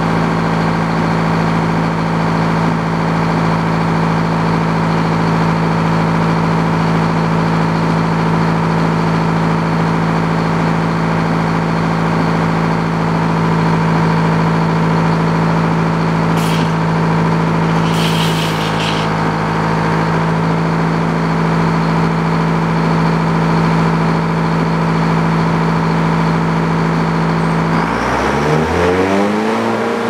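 Old Frick circular sawmill running with its saw blade spinning free, a steady hum from the engine and flat belt drive. Midway there is a short bout of metallic clicking from the carriage levers as the log is set. Near the end the engine's pitch rises as it speeds up.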